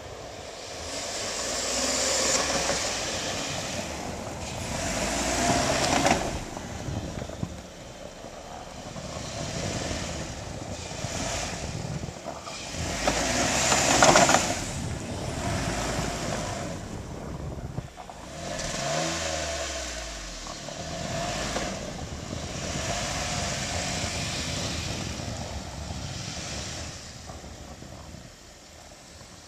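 Jeep Wrangler's 3.8-litre V6 revving in repeated swells as it pushes through deep snow, with the hiss and churn of its tires in the snow. It is loudest as it passes right by about halfway through, and the engine note drops away as it eases off a little later.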